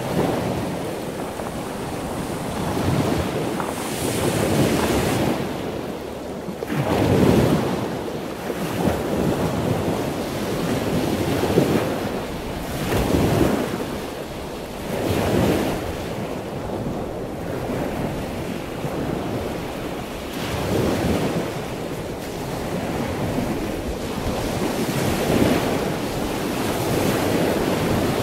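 Heavy storm surf breaking and washing ashore in repeated surges, with wind rumbling on the microphone.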